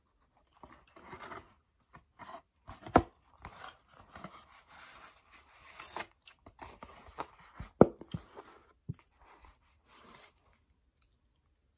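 Paperboard takeout boxes being handled and their flaps folded shut: irregular rubbing and scraping of cardboard, with two sharp knocks about 3 and 8 seconds in.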